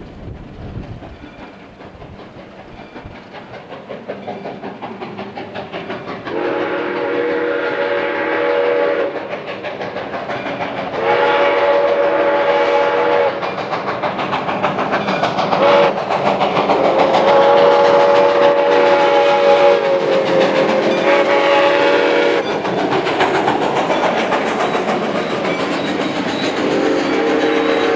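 Soo Line 1003, a 2-8-2 Mikado steam locomotive, passes with its chime steam whistle sounding the grade-crossing signal: two long blasts, a short one, then a long one. Another blast starts near the end. Under the whistle, the exhaust beats grow louder as the engine nears, then freight cars roll by clattering over the rails.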